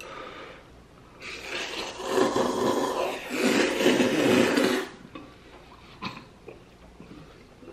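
A man loudly slurping a long mouthful of kalguksu (knife-cut wheat noodles) straight from the bowl, the Korean myeonchigi slurp, in a noisy rasping draw lasting about three and a half seconds with a short dip partway through.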